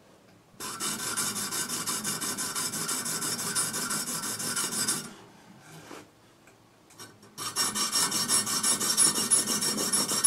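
Oiled diamond sharpening stick rubbed rapidly back and forth across the face of a carbide tooth on a circular saw blade, honing the dull tooth sharp: a dry, fine rasping. It comes in two spells with a pause of about two seconds between them.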